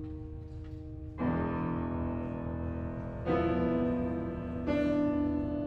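Background piano music: slow chords struck about a second, three seconds and four and a half seconds in, each left to ring on.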